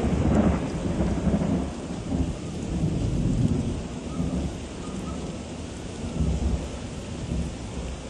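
Gale-force storm wind buffeting the microphone in a low, uneven rumble over the wash of heavy storm surf. The gusts are strongest in the first half and ease somewhat after about four seconds.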